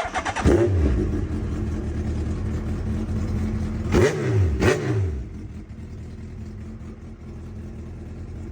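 2007 Suzuki GSX1300R Hayabusa's inline-four engine starting on the new key and running, with two quick throttle blips about four seconds in. It then settles to a steady, quieter idle.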